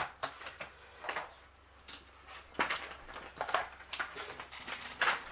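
Small plastic toy parts being handled: a few scattered light clicks and knocks, roughly one every second.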